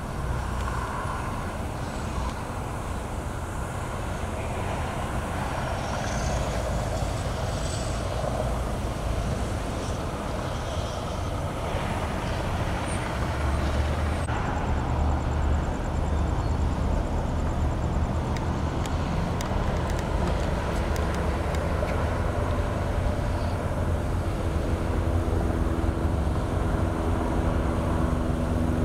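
Steady freeway traffic noise: a continuous low rumble of passing cars and trucks, with a steady engine hum joining in about two-thirds of the way through.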